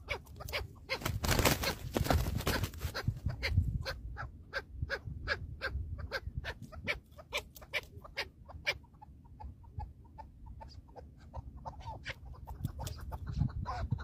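Chukar partridges calling: a steady run of short, sharp clucking notes, about three or four a second, with a rush of wing-flapping near the start.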